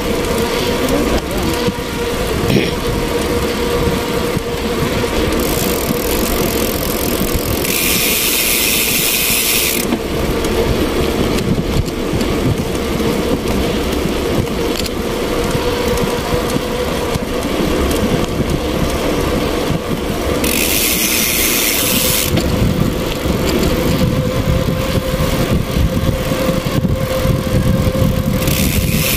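Motorcycle engine running steadily while riding, over a low rushing noise. A sharper hiss comes in twice for about two seconds each time, and again near the end.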